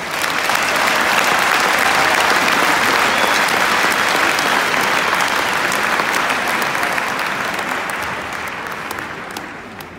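Arena crowd applauding, breaking out all at once and slowly dying down toward the end.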